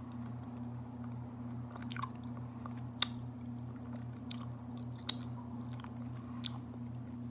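A person chewing raw honeycomb, with about five sharp, wet, sticky clicks of the mouth and wax. Under it runs a steady low hum.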